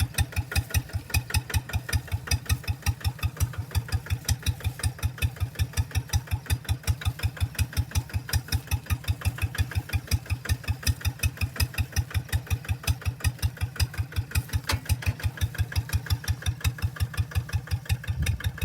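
Two-wheel hand tractor's engine idling, with a slow, even thumping of about five or six beats a second.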